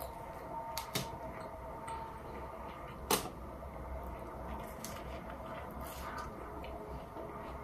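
Close-up eating sounds from biting and chewing a fried chalupa: a few sharp crunching clicks, the loudest about three seconds in, over a steady low background hum.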